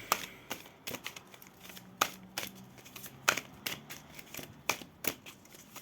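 A deck of tarot cards being shuffled by hand: short, crisp card snaps and taps, irregular, about three a second.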